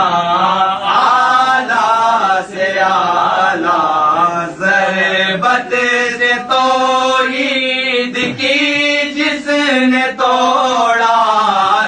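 A man's voice chanting verse melodically, in long held notes that bend and slide in pitch.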